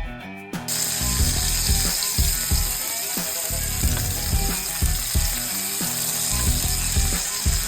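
A fast, steady mechanical ratcheting that starts about half a second in, over background music.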